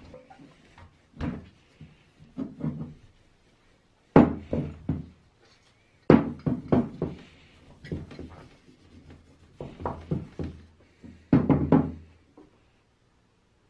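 A cloth rubbing and buffing the polished copper tank of a 1950 Muratori hand sprayer, in short bursts, with knocks as the tank is handled, turned over and stood on a wooden bench.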